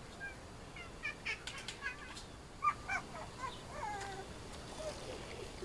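Sheepadoodle puppies play-wrestling, giving a string of short, high squeaks and yips with a few whiny notes that slide up and down in pitch.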